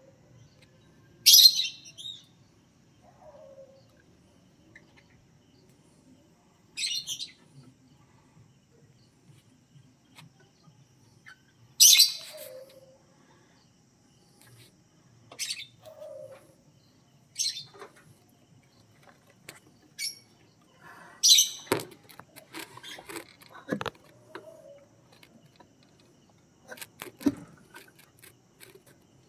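Fischer's lovebirds giving short, shrill chirps, about eight single calls spaced a few seconds apart. Near the end come several knocks and clicks from the cage.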